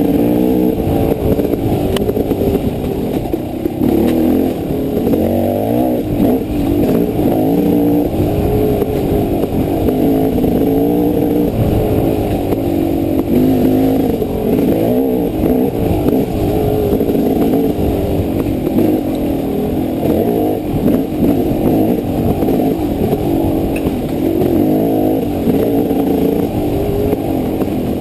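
Dirt bike engine revving up and down continuously as the throttle is worked on a rough trail. It is heard muffled from the rider's helmet, with most of the sound low and little treble.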